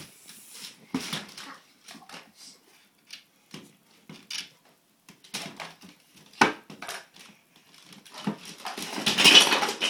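Scattered clicks and knocks of plastic toy bricks and a plastic toy-box lid being handled, with one sharp knock about six and a half seconds in. Near the end comes a louder noisy rustle lasting about a second.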